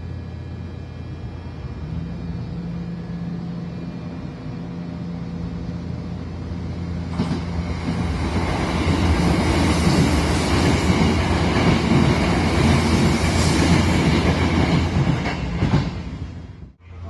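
Electric train running on the rails over a low steady hum, the rail noise swelling much louder about seven seconds in, then cutting off suddenly near the end.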